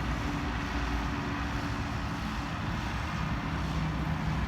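Steady engine and traffic noise, with a low engine hum that drops to a lower pitch about three seconds in.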